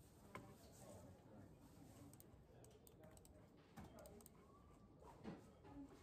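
Faint typing on a laptop keyboard, soft key taps with a few mouse clicks among them.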